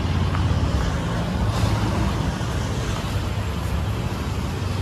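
Motor vehicle running: a steady low engine hum with continuous road noise.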